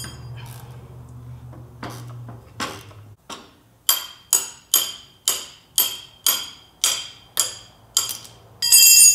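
A steel wrench striking a rusted strut top nut, about ten sharp metal-on-metal hits roughly two a second. Each hit rings, and a louder ringing clang comes near the end. A low steady hum and a few knocks come before the hits start.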